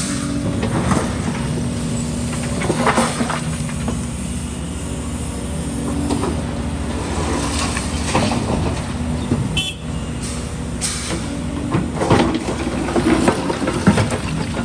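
Heavy diesel excavator engine running steadily, with scattered clattering and scraping of broken concrete debris.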